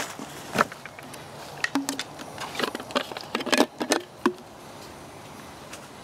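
A string of short clicks and knocks of camp cooking kit being handled around a steel billy can of dry bannock mix. They stop about four and a half seconds in, leaving only a faint steady background.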